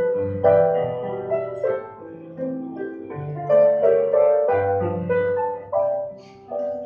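Grand piano and tenor saxophone playing together as a duo, the saxophone carrying held melody notes over the piano.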